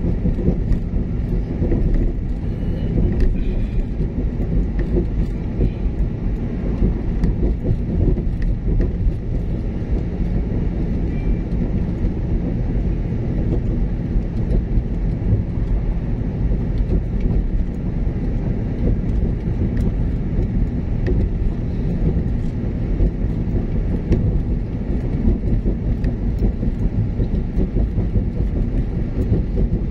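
Steady low rumble of a car's tyres and engine heard from inside the cabin while driving along a paved road.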